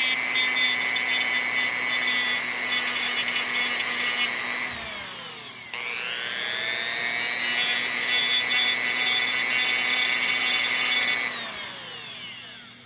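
Dremel rotary tool with a cutting wheel running at a high whine, grinding down a thick plastic bump on a diecast car's base. It winds down about four and a half seconds in, spins back up a second later, and winds down again near the end.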